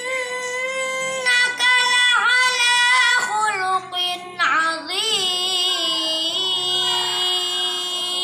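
A boy chanting Qur'an recitation (tilawah) in a melodic style. He sings two long phrases with a short break for breath about four seconds in, each drawn out on long held notes with ornamented turns of pitch.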